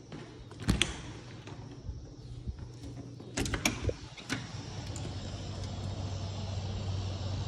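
A sliding patio door unlatched and slid open, with a sharp click about a second in and a cluster of knocks and rattles a few seconds later. Afterwards a steady low hum comes up.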